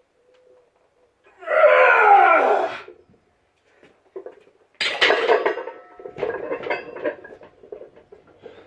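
A loud vocal groan of effort, falling in pitch, then from about five seconds in a sudden clatter of metal clanking and rattling, with some ringing that fades.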